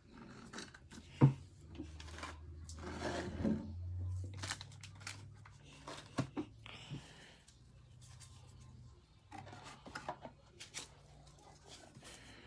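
Trading cards and plastic-wrapped card packs being handled on a table: rustling, sliding and light taps, with a sharp tap about a second in and louder wrapper rustling a few seconds in.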